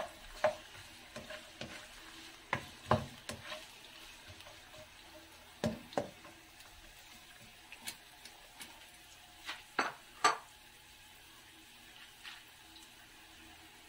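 Julienned carrots sizzling in oil in a nonstick wok, with a spatula scraping and tapping against the pan at irregular moments as they are stirred; the loudest scrapes come about ten seconds in, and then the stirring all but stops.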